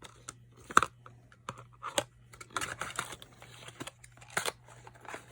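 Small items and packaging being handled: a few sharp clicks and knocks, with a stretch of crinkly rustling in the middle.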